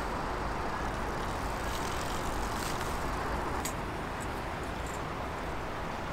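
Steady road traffic noise from nearby roads, an even rumble and hiss with no single vehicle standing out, and a couple of faint clicks around the middle.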